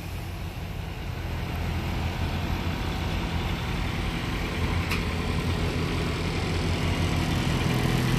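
Semi truck's diesel engine running at low speed as the tractor-trailer backs up slowly: a steady low drone that grows a little louder toward the end.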